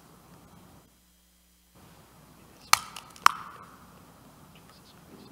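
Two sharp clinks about half a second apart, each with a brief ring, over quiet church room tone, after a moment where the sound drops out completely.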